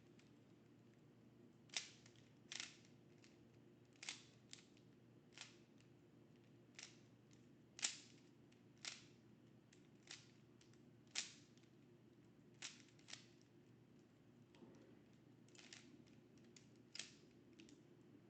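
A Rubik's Cube being turned fast during a speedsolve: irregular sharp clicks as its layers are twisted, sometimes two in quick succession, with gaps of up to a second or so between them.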